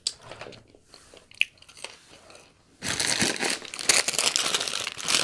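Paper McDonald's Chicken McNuggets bag being handled and crumpled. A few faint rustles and clicks come first, then loud, continuous crinkling starts a little over halfway through.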